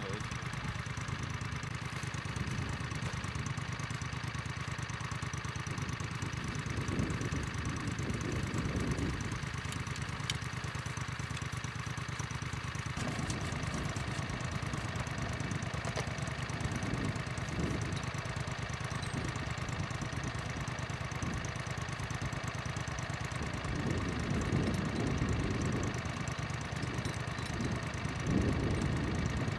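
A vehicle engine idling steadily throughout. Over it, several short spells of scratching and rustling as dry soil is sifted and worked by hand over a trap bed.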